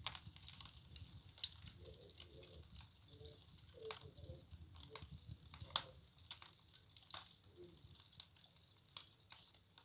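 Wood fire crackling in a fireplace: irregular sharp pops and snaps over a low steady rumble, with the loudest snaps about four and six seconds in.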